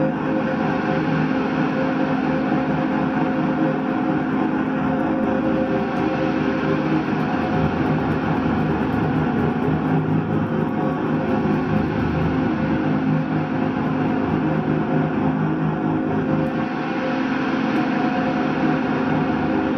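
Electric guitar played through a board of effects pedals and loops, making a steady, unbroken noise drone with several held tones and no beat.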